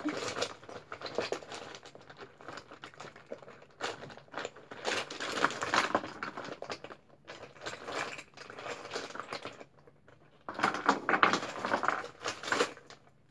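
Rummaging through small belongings: rustling, crinkling and light clattering of items being moved and searched through, in about four spells with short pauses between.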